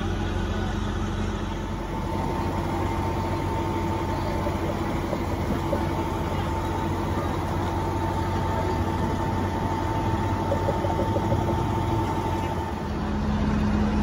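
Fire trucks' diesel engines idling steadily, with a faint steady high whine over them for most of the time.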